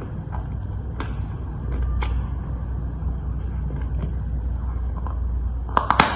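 Dry chalk being crunched: a few faint crackles over a steady low rumble, then a quick run of sharp, loud crunches near the end.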